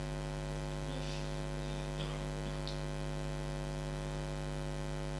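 Steady electrical mains hum through a microphone and sound system, an unchanging buzz with many even overtones.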